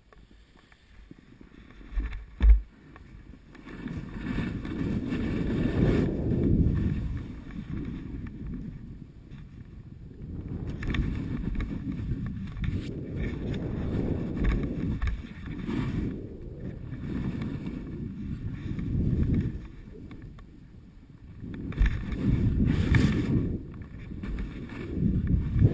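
Wind rumbling on the camera microphone during a fast ski descent through trees, with the rush of sliding over snow rising and falling in swells every couple of seconds. Two short knocks come about two seconds in.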